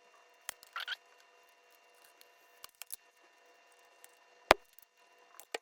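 Scattered sharp cracks and clicks of cracked touchscreen digitizer glass snapping as it is pried off its glued mounting on a Toyota Tundra radio, with the loudest crack about three-quarters of the way in.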